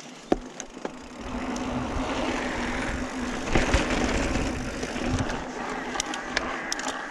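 Mountain bike riding and climbing over sandstone slickrock: rolling tyre and wind noise with a steady hum through the middle, and sharp clicks and knocks from the bike, one just after the start and several near the end.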